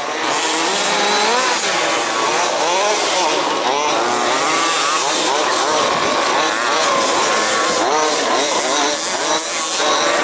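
Several 1/5-scale RC off-road cars' small two-stroke petrol engines revving around the track, their pitches rising and falling over one another as they accelerate and brake through the corners.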